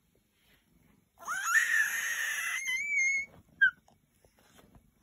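A kitten meowing: one long, loud call that starts about a second in, rises in pitch, then holds for about two seconds, followed by a short high chirp.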